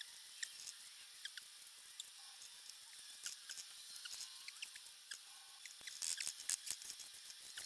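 Faint, quick scratching and clicking of painting work with a brush, sped up by the time-lapse so that it comes out squeaky. There are many small ticks over a high hiss, and they grow busier about six seconds in.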